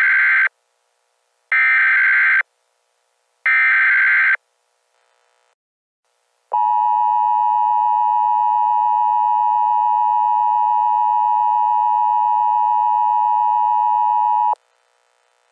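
Emergency Alert System SAME header: three one-second bursts of digital data tones, each a near repeat of the last. They are followed by the EAS two-tone attention signal (853 and 960 Hz), held steady for about eight seconds and then cut off abruptly. Together they open a required weekly test.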